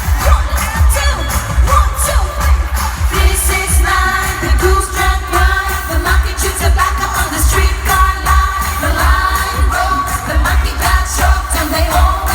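Live pop performance: a female vocal group singing over a loud backing track with a heavy, pounding bass beat, heard through arena loudspeakers.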